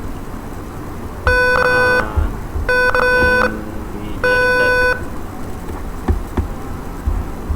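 Electronic buzzer of the door-lock alarm beeping three times, each steady beep lasting about two-thirds of a second, sounding because the password has been entered wrong three times. A few faint clicks follow near the end.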